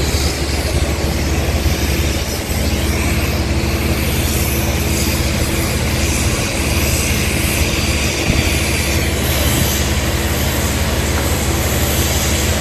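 Floodwater torrent rushing through a street: a loud, steady roar with a deep rumble underneath.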